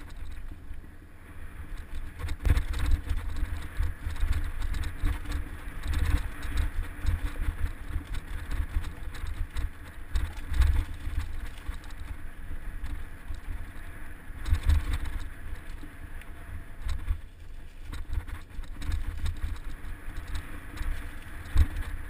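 Mountain bike riding down dirt singletrack, heard from the bike: tyres crunching over dirt and the bike rattling and knocking over bumps in an uneven, continuous stream. Wind rumbles heavily on the microphone throughout.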